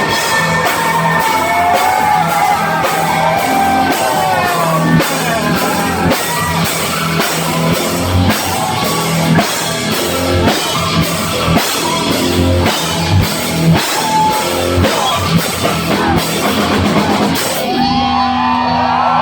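Loud live rock band playing in a club: steady drum hits, electric guitar and a singer's voice. The drums stop about a second before the end, leaving a voice ringing in the room.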